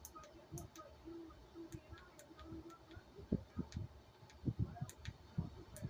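Irregular small clicks, taps and knocks of something being handled and adjusted close to the microphone, with a few louder knocks from about three seconds in.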